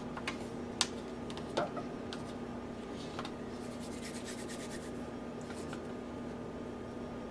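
Light clicks and taps of tools and small metal sink-drain parts being handled on a countertop, with a quick run of fine ticks about four seconds in, over a steady low electrical hum.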